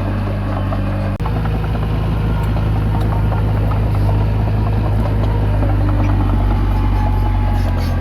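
Komatsu D20P bulldozer's diesel engine running steadily under load, a deep even hum with faint ticks over it. The sound cuts out for an instant about a second in.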